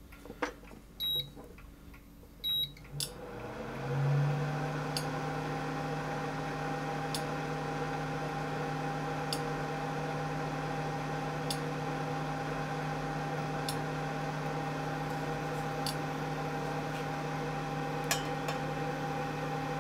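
Induction hob: two short beeps, then about three seconds in a hum rises and settles into a steady electrical hum and fan noise as it runs under a pot of water. A faint tick comes roughly every two seconds.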